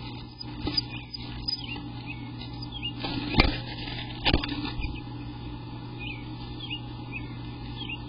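Adult eastern bluebird visiting the nest box: two loud knocks about a second apart as it lands and moves inside the box. Faint short high chirps from the birds come and go over a steady low hum.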